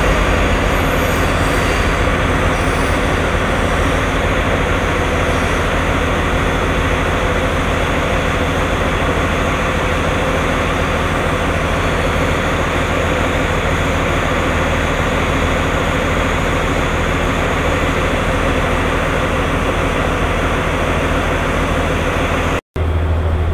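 Steady low hum and rumble of a diesel passenger train's engine running at the platform, with a momentary dropout near the end.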